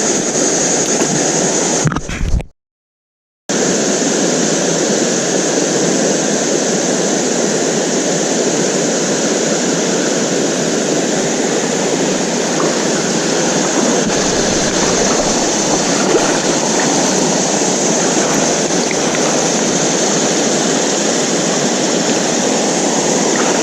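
River water rushing steadily, cutting out completely for about a second near the start.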